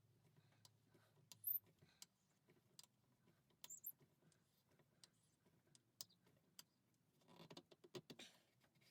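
Near silence broken by scattered faint clicks and light metal taps, the sound of an 8mm Allen key and a threaded insert being worked into a lathe mandrel.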